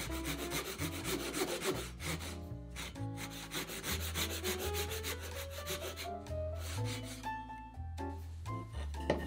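Japanese pull saw cutting across a cherry board in quick, even strokes, loudest in the first couple of seconds. Soft background music with piano and bass then takes over, with only a few scattered saw strokes.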